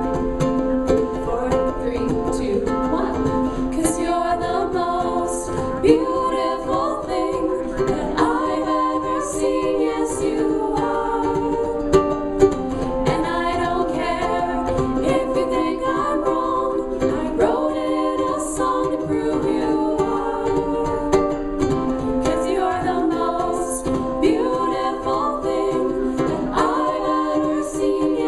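Music: a song with singing over an instrumental accompaniment, at a steady level throughout.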